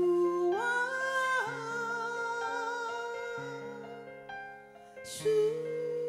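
Live band playing a slow pop ballad between sung lines: sustained keyboard chords and bass notes under a long held lead note that steps up about half a second in and wavers. A brief hiss about five seconds in.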